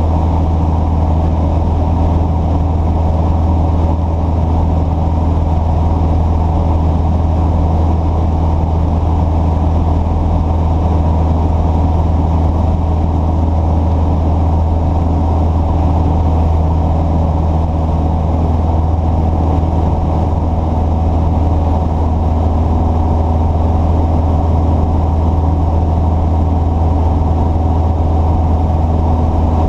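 A vehicle engine idling steadily, with a constant low hum that does not rise or fall.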